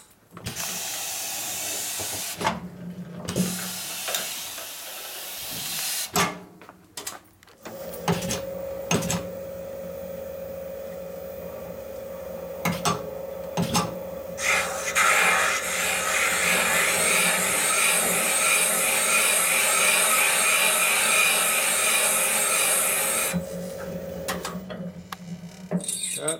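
Valve seat cutting machine running a multiple-angle seat cutter in a Harley shovelhead cylinder head. After a few seconds of hiss, the spindle runs with a steady whine, and for the middle stretch the cutter scrapes loudly as it cuts the valve seat, then stops shortly before the end.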